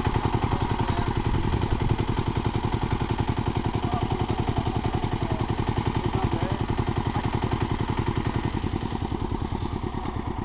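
Small engine running steadily at a constant speed with a fast, even pulsing beat.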